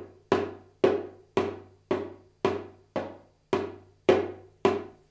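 Darbuka closed strokes, played with the finger staying on the head so the note is damped: nine single, evenly spaced hits, almost two a second.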